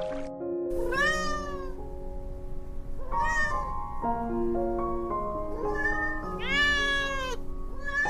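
A cat meowing about four times, each meow a drawn-out cry that rises and falls, over soft background music of steady sustained notes.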